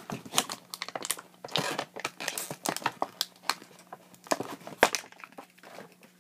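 Plastic packaging crinkling and tearing as Beyblade parts are unwrapped: irregular crackles and rustles throughout.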